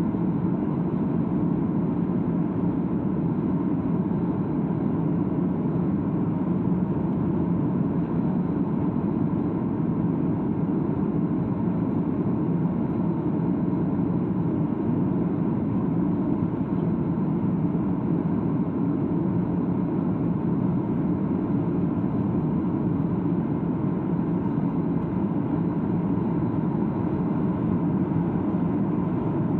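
Steady roar of jet engines and rushing air inside an airliner cabin during the climb after takeoff, deep and even throughout.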